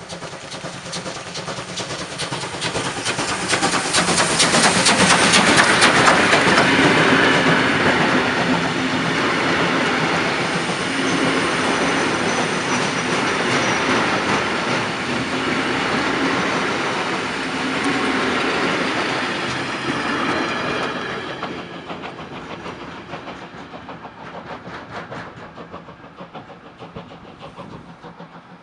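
Class 52 two-cylinder 2-10-0 steam locomotive 52 1360-8 passing close by with a train of gravel hopper wagons. The locomotive is loudest about five seconds in. Then comes a long run of wagon wheels clattering over the rail joints, which fades after about twenty seconds as the train moves off.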